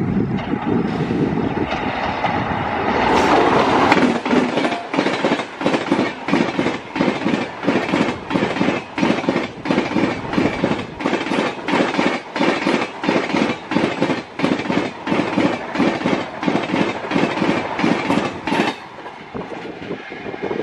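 An express train passing at high speed behind a WAP-7 electric locomotive. A rushing noise builds to its loudest about four seconds in, then the coach wheels clatter over the rail joints in a steady clickety-clack, about two beats a second, until the sound falls away near the end as the train passes.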